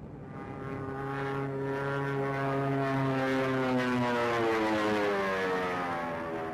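Propeller warplane engine droning overhead as the aircraft flies past; its pitch falls over the second half of the pass.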